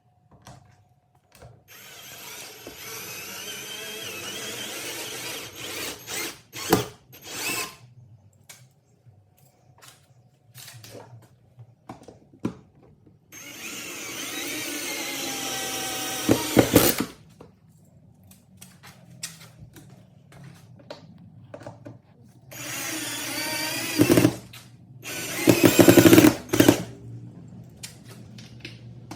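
Hyper Tough electric drill running in three bursts of a few seconds each, its pitch wavering as it works into the garage wall to mount the rail. Sharp loud knocks come near the end of the bursts.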